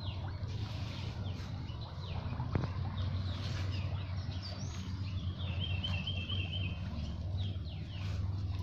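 Birds calling: many short down-slurred chirps and, about six seconds in, a quick rattling trill, over a steady low hum.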